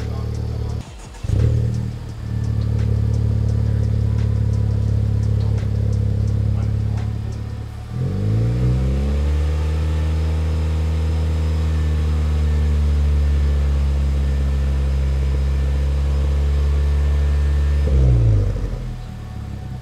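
Honda Civic Type R's turbocharged 2.0-litre four-cylinder running through a Spoon Sports N1 cat-back exhaust. It gives a short throttle blip, then idles steadily, then is revved up and held at raised rpm for about ten seconds before dropping back near the end.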